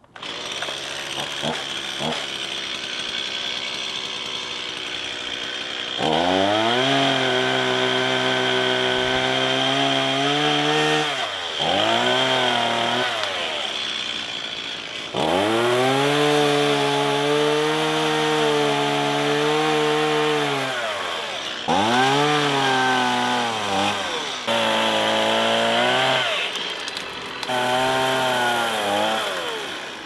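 Gas chainsaw cutting dead branches high in a tree. It idles at first, then is revved to full throttle in about six bursts of one to six seconds, dropping back toward idle between cuts, with the pitch sagging at times as the chain bites.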